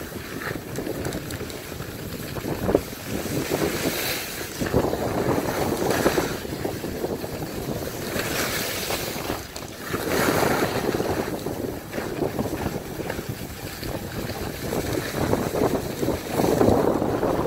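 Wind buffeting the microphone in uneven surges, over the swish and scrape of sliding down packed snow.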